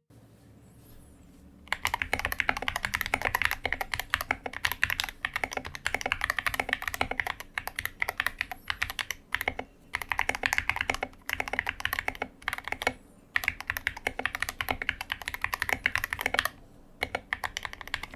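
SK61 mechanical keyboard with optical Gateron Black linear switches, spray-lubed with Super Lube, being typed on fast: a dense run of key clacks starting about two seconds in, broken by a few short pauses.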